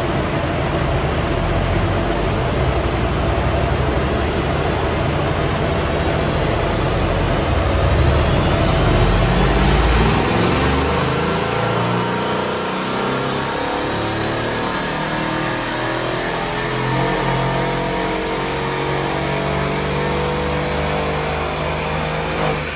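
Mercedes CLS63 AMG's M157 twin-turbo V8 on a four-wheel-drive dyno at full throttle, loudest about eight to ten seconds in. The throttle then closes and the engine and dyno rollers wind down, falling in pitch for about ten seconds.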